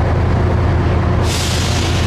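A train idling at the platform with a steady low rumble, and a sudden burst of air hissing about a second and a quarter in, like an air brake venting.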